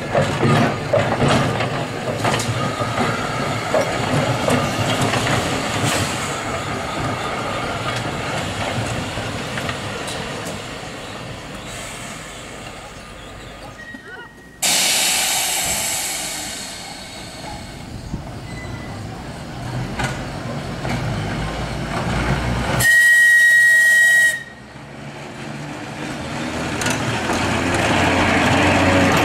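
Manx Electric Railway electric tram car running on the rails with a steady rumble and clatter. About 15 s in there is a sudden burst of air hissing that fades over a couple of seconds. About 23 s in the car sounds one whistle blast lasting about a second and a half, and near the end the rumble swells as the car passes close.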